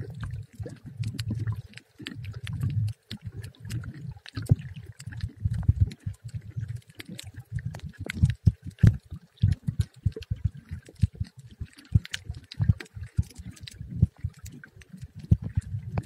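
Muffled underwater audio from a camera held in the sea over a coral reef: an uneven low rumble of moving water that keeps cutting in and out, with many sharp clicks and crackles throughout.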